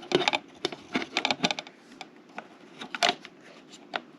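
Hard plastic accessory parts being handled and fitted by hand: clusters of sharp clicks, taps and light rattles, the loudest a little after the start and about three seconds in.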